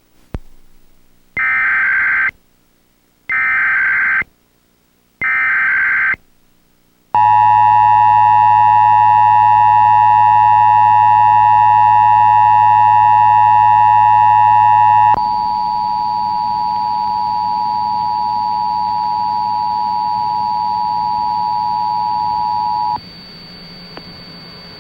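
Emergency Alert System test tones. First come three short bursts of SAME header data, a high warbling digital screech about a second each with short pauses between. Then the loud, steady two-tone attention signal holds for about eight seconds. After it a quieter steady tone continues for about eight more seconds and stops suddenly, leaving faint hiss and hum.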